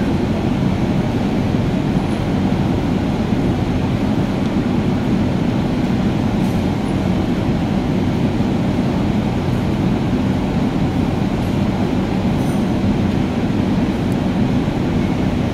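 A steady low rumble, even in level, with a few faint small clicks on top.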